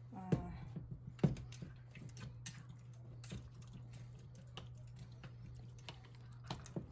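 Scattered light clicks and taps of bowls and utensils being handled around a glass-top stove, over a steady low hum.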